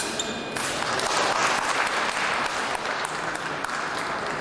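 Spectators applauding in a fencing hall after a touch. In the first half-second a steady electronic tone, typical of an épée scoring machine signalling a hit, cuts off.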